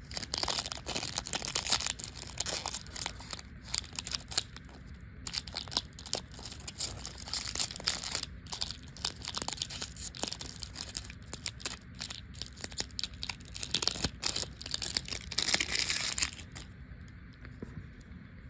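Wrapper of a Topps baseball trading card pack being torn open and crinkled in the hands. The crackling stops about three-quarters of the way through, leaving only faint handling noise.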